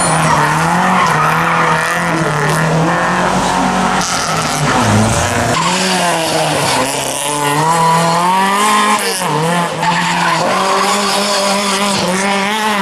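Classic rally cars' engines revving hard through the stage. The pitch climbs and then drops back again and again with each gear change, as one car after another passes.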